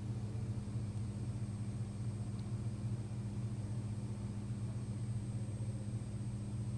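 Steady low hum of background ambience, even throughout, with no distinct events.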